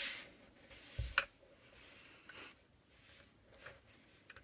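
Scoring stylus on cardstock lying on a plastic scoring board: a scraping stroke dies away at the start, a soft knock and short scrape come about a second in, then only faint scratches of the stylus on the paper.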